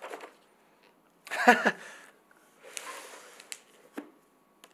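Paper rustling as pages of a large hardcover book are handled and turned, with a few light clicks. About a second and a half in comes the loudest sound, short and falling in pitch.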